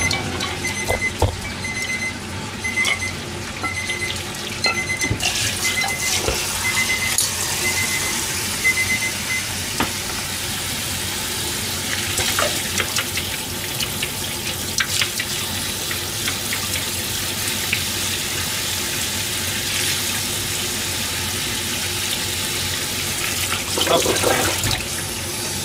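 Kitchen tap running into a stainless steel sink, starting about five seconds in, the water splashing over hands and boiled eggs in a bowl. Over the first nine seconds or so a high electronic beep repeats at an even pace, with a few knocks of a pot being handled at the start.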